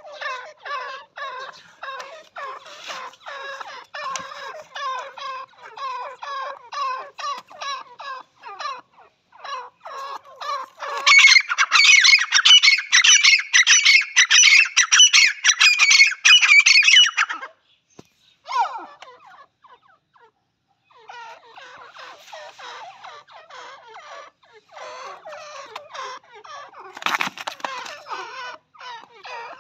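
Grey francolins (teetar) calling: quick runs of short notes, then a louder, higher-pitched burst of rapid calls lasting about six seconds in the middle. After a short pause the runs of notes start again.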